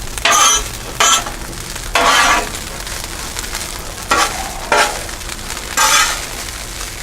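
Pre-cooked rice and butter sizzling on a 28-inch Blackstone flat-top griddle while being stirred and turned, with about six short, louder bursts of sizzle and scraping over a steady frying hiss.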